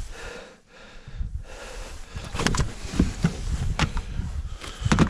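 A few sharp knocks and rustles as a large walleye is handled and lifted out of a landing net on the boat floor, over a steady low rumble.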